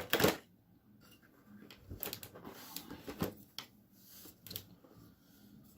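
Handling noises from a 140 mm Noctua case fan being unpacked and turned over: a loud, short rustle at the start, then scattered light clicks and rubs.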